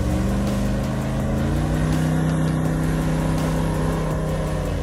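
Chevy K5 Blazer's engine revving as the truck pushes through snow. The pitch rises over the first couple of seconds, then holds steady under load.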